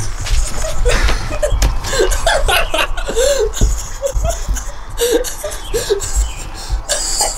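People laughing and snickering in short bursts under their breath, over rustling and bumping from the hand-held camera.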